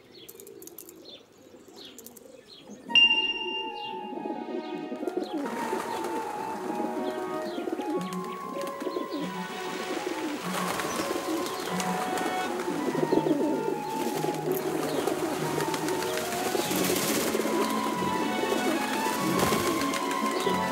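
Pigeons cooing over background film music. The music comes in with a sudden accent about three seconds in and then carries a stepping melody.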